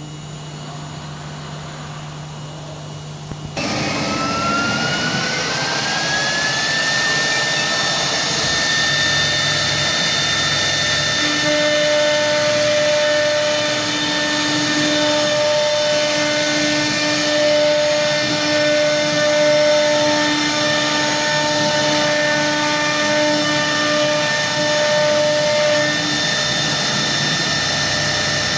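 CNC router's spindle starting up about three and a half seconds in, a rising whine that levels off after about three seconds and then runs steadily and loud. Before it, a low steady hum; from about the middle, further steady tones come and go alongside the spindle as the machine works.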